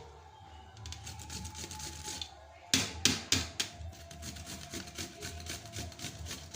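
Radish being cut up by hand: quick, rhythmic cutting strokes, several a second, with a few louder knocks about three seconds in.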